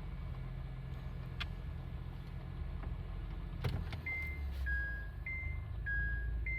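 Honda Odyssey's two-tone 'kin-kon' reverse chime starting about two-thirds of the way in, alternating high and low tones about every half second, over the low hum of the idling car. A couple of sharp clicks come before it.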